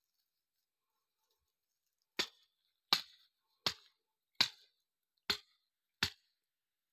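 Six sharp clicks, evenly spaced about three-quarters of a second apart, starting about two seconds in.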